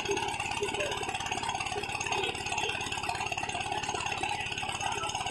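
Small boat engine running steadily at a fast, even beat, with a rattle.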